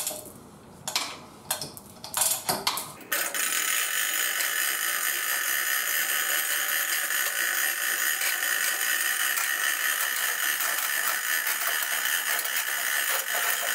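Chain hoist's steel hand chain clinking through the hoist as a mower is lowered: a few separate clanks and clinks at first, then from about three seconds in a continuous fast rattle as the chain is hauled hand over hand.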